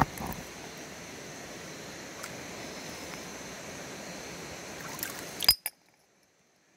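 River water trickling and running between rocks in a shallow pool, a steady wash. About five and a half seconds in there is a sharp knock, after which the sound cuts off suddenly to near silence.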